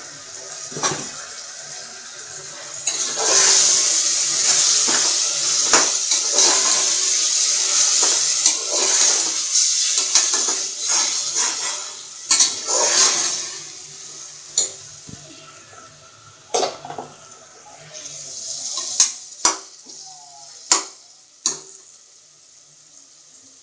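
Steel spatula stirring and scraping in an aluminium pressure cooker, with loud sizzling through the first half as the washed chicken goes into the hot onion masala. In the second half the hissing fades and the spatula knocks sharply against the pot several times.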